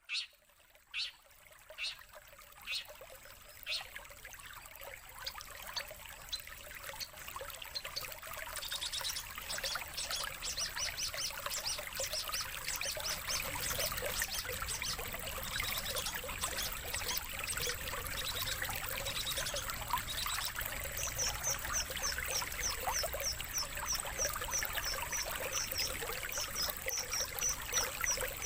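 Songbird calls over a steady rush of running water: a few sharp separate calls at the start, then a fast run of high notes, and later a steady series of high chirps repeated about three times a second. It is a lure and song-training recording for long-tailed shrikes.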